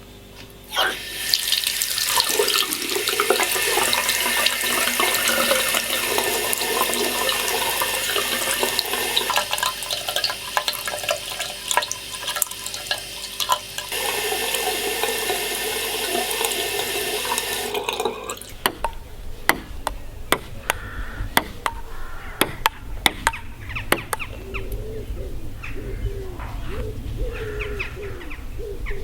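Running water, a steady rushing hiss, for about the first two thirds. It then cuts off, and a low rumble with scattered sharp clicks and faint wavering tones follows.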